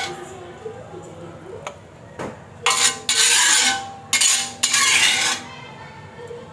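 A spatula stirring and scraping food in a cooking pan: a light clink about two seconds in, then four loud scraping strokes of half a second to a second each.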